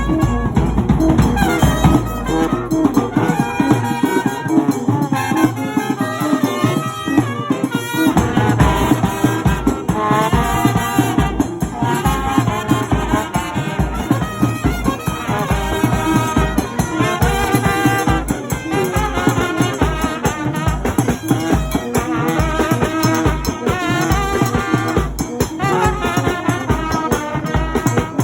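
Brass band playing lively dance music with trumpets over a steady beat. The deep bass drops out about two seconds in and comes back about six seconds later.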